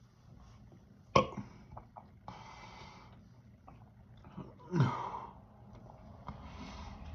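A man coughing hard twice, about three and a half seconds apart, with loud breaths between the coughs.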